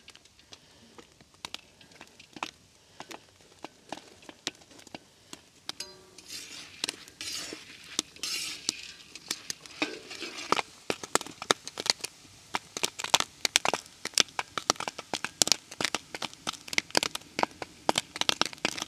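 Popcorn kernels popping in a covered pot: scattered single pops at first, a hiss from about six seconds in, then pops coming thick and fast from about ten seconds on.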